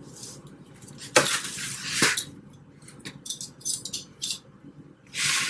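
A kitchen knife and metal tongs clicking and scraping against a foam meat tray. There are two sharp clicks about a second and two seconds in with scraping between them, then a few lighter clinks and a short scrape near the end.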